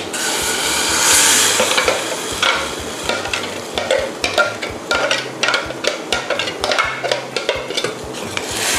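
Thick blended curry-paste and fish mixture poured from a plastic blender jug into a steel saucepan of coconut milk, with a rushing hiss at first. Then come many small irregular clicks and scrapes as a metal ladle works the mixture out of the jug and against the pot.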